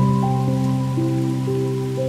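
Soft, slow background music with held notes, a new one coming in every half second or so, over a steady hiss of rain.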